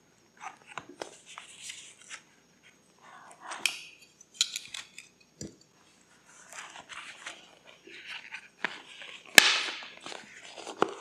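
Paper being handled for a vintage-style journal: irregular rustling and light scraping, with small taps and one sharper knock near the end.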